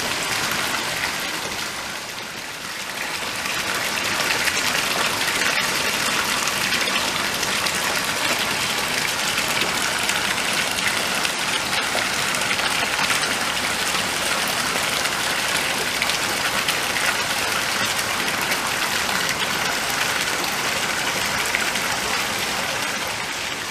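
Hot-spring water pouring from a pipe into an open-air bath, a steady splashing rush that dips briefly about two seconds in.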